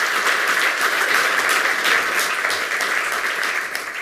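Audience applauding: a dense, steady round of clapping from many people that starts to die down near the end.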